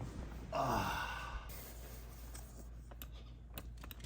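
A person's long sigh that falls in pitch, about half a second in, followed by light, irregular clicks.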